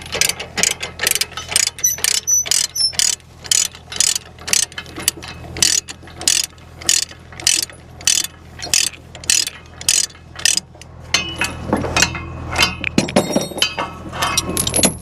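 A ratchet being worked, a steady run of sharp clicks about three times a second, turning into irregular metal clicks and clinks for the last few seconds. A steady low hum runs underneath.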